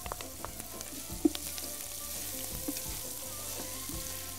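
Sliced onions and freshly added garlic sizzling as they fry in a large aluminium pot, with the scrape and clicks of a wooden spatula stirring. A sharp knock about a second in.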